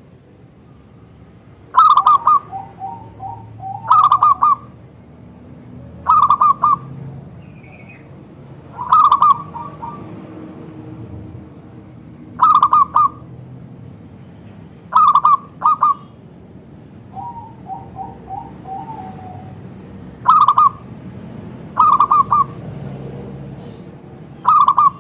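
Zebra dove (perkutut) cooing: a loud, short phrase repeated about every two to three seconds, with two runs of softer, quicker stuttering notes between them.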